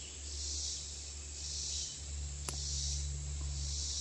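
Insects chirring in the surrounding woods, a high buzz that swells and fades about once a second, over a steady low rumble. A single sharp click about two and a half seconds in.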